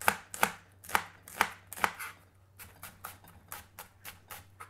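Chef's knife slicing a red onion on a plastic chopping board: sharp knife strikes about two a second for the first two seconds, then after a brief pause quicker, softer strokes about three a second.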